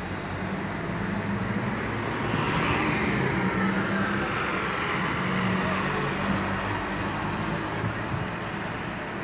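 Street traffic: a city bus's engine passes close below, with car traffic behind it. The sound swells about two seconds in and its hiss falls in pitch as the bus goes by.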